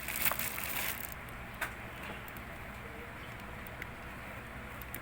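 Faint handling noises of packaging and papers: a few light clicks and rustles in the first second, then only a few faint ticks over a steady low background hum.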